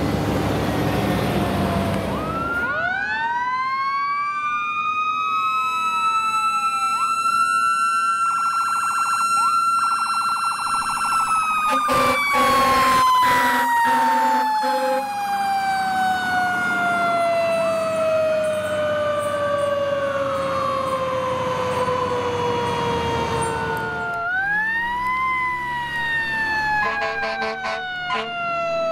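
Fire truck sirens wailing. One siren rises about two seconds in, holds high, then falls slowly for about twelve seconds before rising and falling again near the end. Other siren glides overlap it early on, and a few short blasts of a lower steady tone come in the middle.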